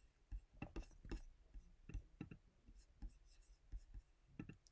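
Near silence broken by faint, irregular clicks of a computer mouse being used to switch between screens.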